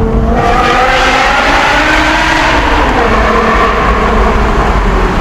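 BMW M5 E60's 5.0-litre V10 accelerating through its loud aftermarket exhaust. The engine note climbs in pitch for about the first two and a half seconds, then holds fairly steady.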